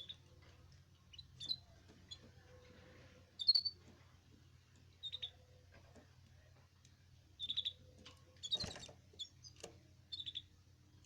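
Caged canaries giving short, scattered chirp calls every second or two, over a steady low hum. About eight and a half seconds in, a brief noisy burst, louder than the chirps.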